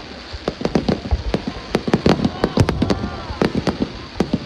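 Fireworks display: aerial shells bursting in a rapid string of sharp bangs and crackles, several a second.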